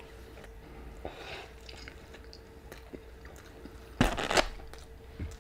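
Close-up chewing of a mouthful of Korean beef burrito, with many small wet mouth clicks. A louder burst of chewing comes about four seconds in. A faint steady hum runs underneath.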